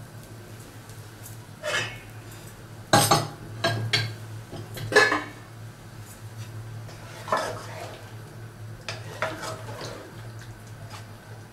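A spatula scraping and knocking against a kadai and a cooking pot as fried vegetables are scraped out and stirred into chicken. It makes a handful of sharp clatters, the loudest about three and five seconds in, over a steady low hum.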